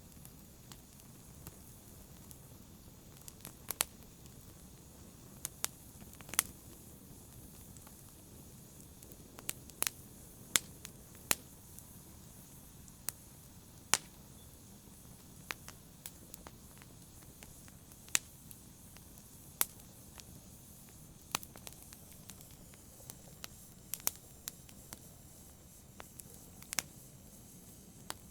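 Wood fire in a fireplace crackling: sparse, irregular sharp pops and snaps over a faint steady hiss.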